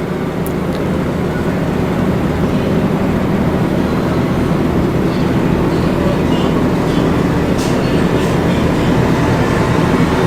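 Steady low rumbling background noise with a hum, growing slightly louder, and a few faint clicks.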